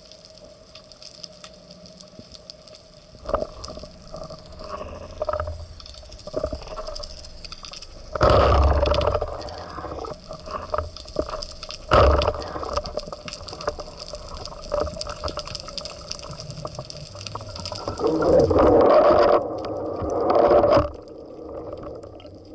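Water gurgling and sloshing, with a few scattered knocks, a loud rush of water about a third of the way in, one sharp loud hit about halfway, and two more loud rushes near the end.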